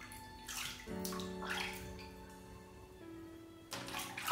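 Bathwater splashing in a plastic tub as a hand scoops it over a kitten, in three separate splashes, the last near the end and loudest, over background music.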